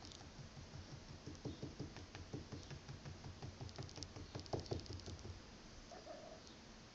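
Fast, even scratching and rubbing on the carpeted cat-tree perch, about seven soft strokes a second with a few light clicks, stopping about five seconds in.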